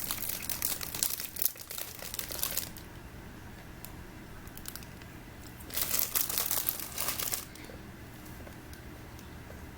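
Plastic snack-cake wrapper crinkling as it is handled, in two bouts: one in the first two and a half seconds and another starting about six seconds in.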